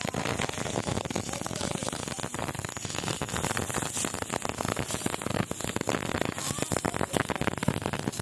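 Electric arc welding: the arc crackling and sizzling steadily, with a dense run of small pops.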